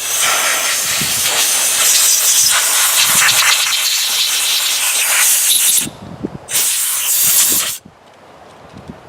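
Compressed air hissing from an air compressor's blow gun, blasting dirt off chainsaw parts: one long blast of about six seconds, then after a short pause a second blast of just over a second.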